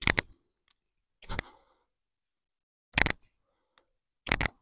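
Small Cudeman bushcraft knife whittling a wooden stick: four short, sharp cuts into the wood, about a second and a half apart.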